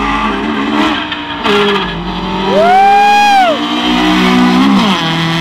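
Street-race cars accelerating hard, their engine pitch rising and dropping back with gear changes. Midway, a loud high-pitched tone rises, holds for about a second and falls away.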